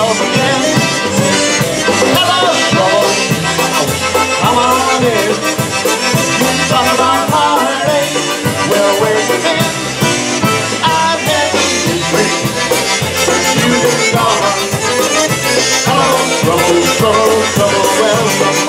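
Live polka band playing an instrumental passage, with accordion to the fore over horns and drums, at a steady beat.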